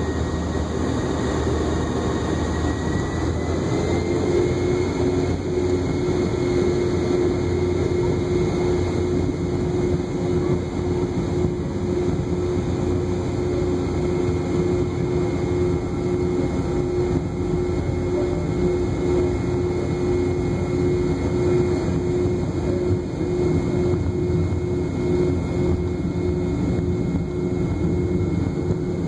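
Cabin sound of a Boeing 717's rear-mounted Rolls-Royce BR715 turbofan engines running as the jet taxis: a steady low rumble with an engine whine that rises in pitch over the first few seconds, then holds steady.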